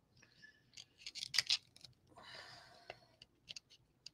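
Small pliers nipping the hard plastic edge of a PSA graded-card slab: a run of sharp clicks and snaps, several in quick succession about a second in, a short crunching scrape a little after two seconds, and more snips near the end.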